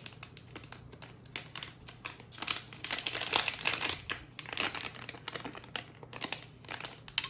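Plastic packaging crinkling and clicking as it is handled, the rustling densest in the middle, with a faint steady hum underneath.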